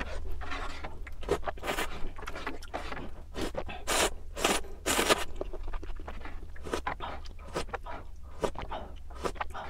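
Close-miked eating of ramen: several short slurps of noodles, loudest around the middle, with chewing and wet mouth sounds in between.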